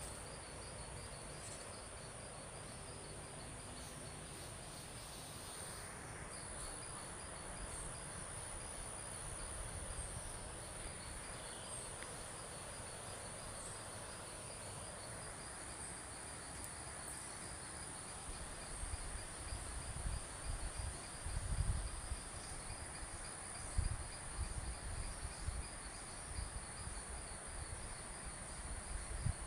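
Crickets and other insects calling: one continuous high, steady buzz and a lower chirp that pulses evenly and never stops. Irregular low rumbling thuds come in during the second half.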